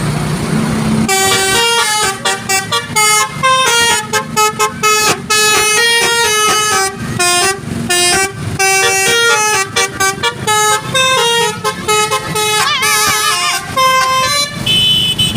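Basuri 'telolet' multi-tone horn playing a quick melody of short stepped notes, starting about a second in after a low hum. Near the end it switches to wavering, warbling tones with a held note.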